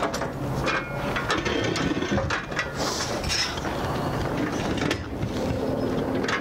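Folding metal-framed railing panels on a toy hauler's ramp-door patio being swung out and latched by hand: a series of clanks and clicks from the frames and latches, with a short metallic ring about a second in.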